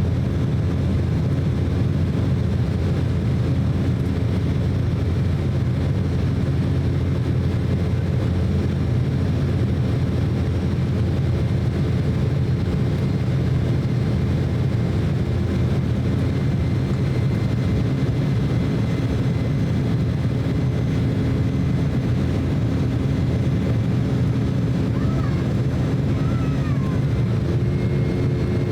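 Steady cabin noise inside an Embraer E190 jet airliner: the even rush of airflow and the hum of its two GE CF34 turbofan engines, with a few steady engine tones. Near the end the engine tones shift slightly in pitch.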